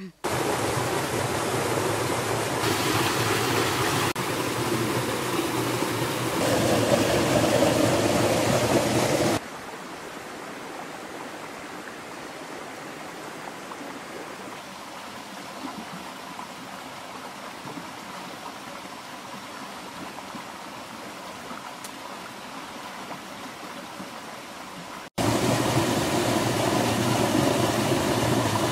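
Steady rushing water of a stream, a lineless hiss that drops abruptly to a much softer level about nine seconds in and returns loud near the end.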